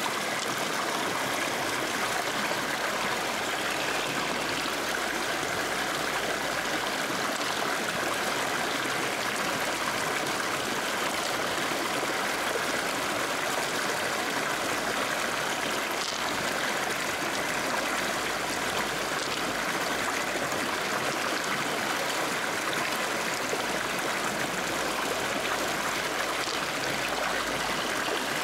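Stream water running steadily, an even rushing with no breaks.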